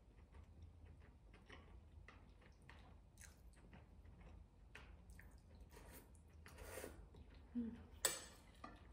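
Quiet mouth sounds of a person eating noodle soup: soft wet slurps and chewing with small clicks, and a couple of louder slurps near the end.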